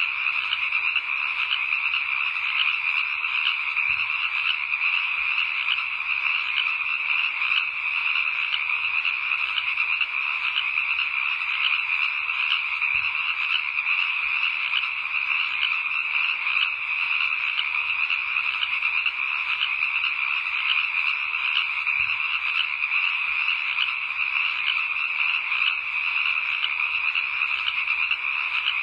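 A dense, steady night chorus of frogs, many voices trilling together without a break.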